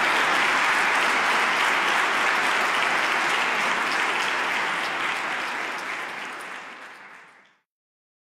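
A church congregation applauding, a dense steady clapping that fades away over the last couple of seconds and stops about seven and a half seconds in.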